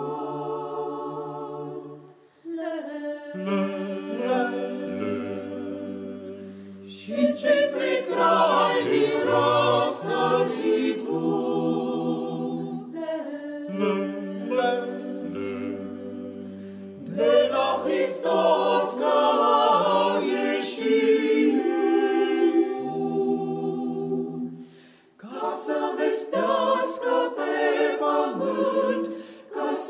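Mixed choir of men's and women's voices singing a Romanian Christmas carol a cappella in sustained chords over a low bass line. The singing breaks off briefly about two seconds in and again near the end, then resumes.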